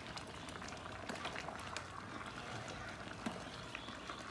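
Vegetable soup bubbling in a metal pot, a steady run of small pops and crackles.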